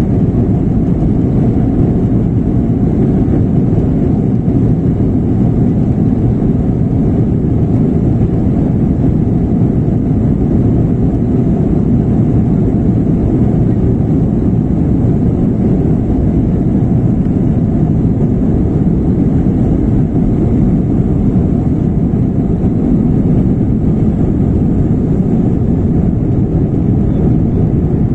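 Inside the cabin of an Airbus A320-family airliner during its takeoff roll and liftoff: the jet engines running at takeoff thrust and the runway rumble blend into a loud, steady, low noise.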